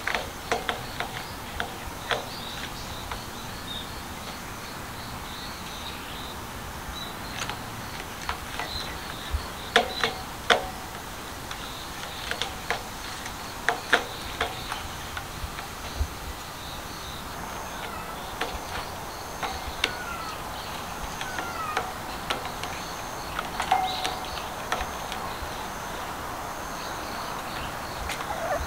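Outdoor yard ambience: a steady hiss with many scattered sharp clicks and short high chirps, and occasional brief meows from a kitten.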